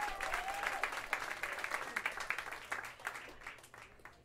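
Audience applause from a club crowd, dense clapping that thins out and fades away near the end.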